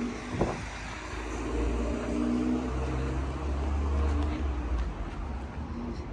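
A car driving past on the street, its engine and tyre noise swelling to loudest around two to four seconds in, then fading.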